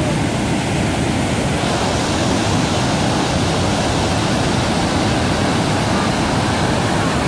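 Floodwater rushing out under the open sluice gates of a full reservoir's spillway and pouring down the concrete chute: a loud, steady, unbroken roar of water at flood discharge.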